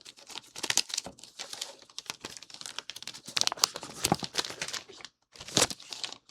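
Small plastic bags of kit pieces crinkling as they are handled and sorted through, an irregular run of crackles with a brief pause near the end.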